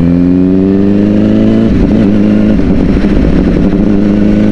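Kawasaki ZX-10 inline four-cylinder sport-bike engine pulling under acceleration, its note rising steadily. About a second and a half in, the pitch drops to a lower note, as on an upshift, and then climbs again.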